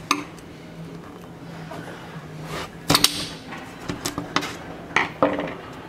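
Light clicks and taps of a small screwdriver against window glass and a rubber washer as the washer is worked into place, a handful in all, the sharpest about three seconds in.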